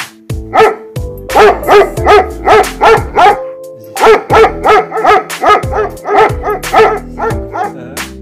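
A dog barking rapidly and repeatedly, about three barks a second, with a short break about three and a half seconds in. Background music with sustained notes plays underneath.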